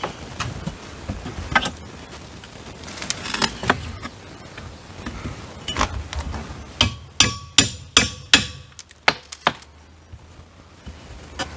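Claw hammer striking a steel pry bar to drive it behind siding boards and pry them off the wall. Scattered knocks give way to a quick run of sharp metallic strikes about two-thirds of the way in.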